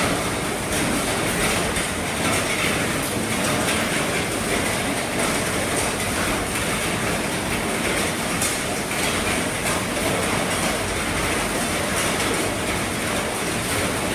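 Heavy rain falling on an RV roof: a dense, steady patter with many small drop ticks.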